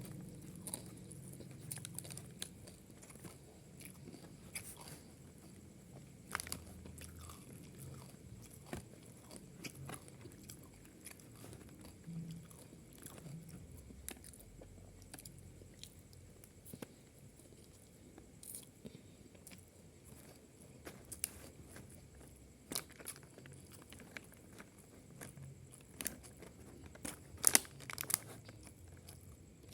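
A person chewing and biting food close to the microphone, with irregular soft crunches. A few sharper clicks stand out near the end.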